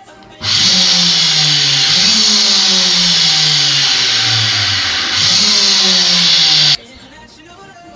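AC electric motor, switched through a relay by a homemade AM radio remote, starts suddenly and runs with a loud whirr and hiss. Its pitch slides down, jumps back up twice, then the motor cuts off suddenly.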